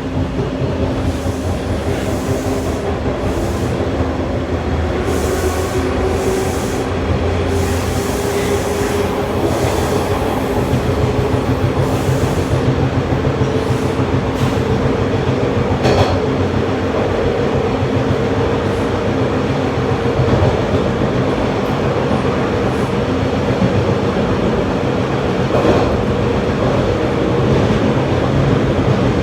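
TTC T1 subway car running at speed between stations. The wheels rumble steadily on the track, and a motor whine rises slowly in pitch as the train gains speed, then holds. There are a few sharp clicks from the rails.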